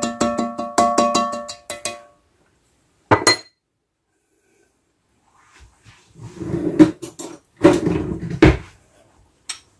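A metal cooking pot rings under a quick run of spatula taps and scrapes for about two seconds. A single clink follows about three seconds in. From about halfway on, kitchen utensils clatter and rattle as a spoon is fetched.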